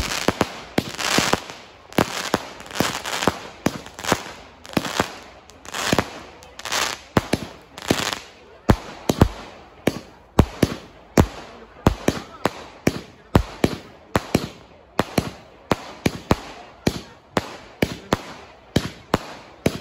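A 170-shot fireworks cake firing in a long, steady string of sharp bangs, about two a second, with a crackling hiss between the bangs in the first couple of seconds.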